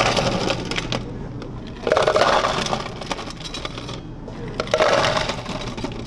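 Ice cubes poured from a stainless steel scoop into plastic cups, clattering and cracking as they land, in three pours about two seconds apart.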